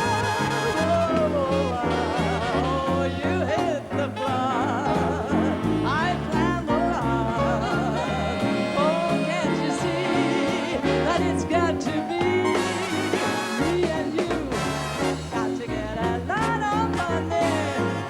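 Swing music played by a band: a wavering melody line, sung or played, over a steady stepping bass line.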